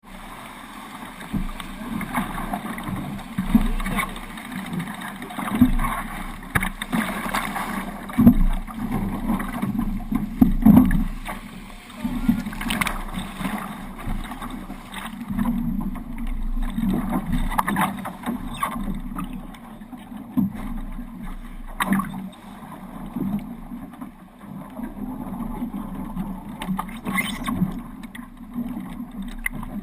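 Hobie 18 catamaran under sail: water rushing and splashing against the hulls in an uneven, gusty wash with frequent short slaps.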